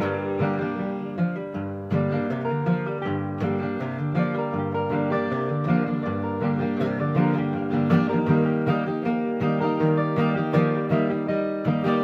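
Instrumental break of a live Americana band: strummed acoustic guitar with a picked bass line, and no singing.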